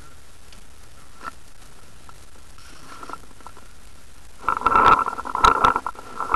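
Handling noise from a paintball gun with a camera mounted on it: a single click a little over a second in, then about two seconds of rustling, scraping and knocking from about four and a half seconds in as the gun is moved and tipped down.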